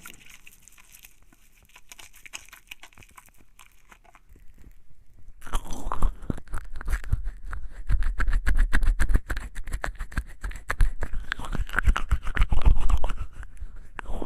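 Wet, soapy hands being rubbed together, a dense squelching crackle of lather. It is quieter and sparser at first, stops briefly, then comes back much louder about five and a half seconds in.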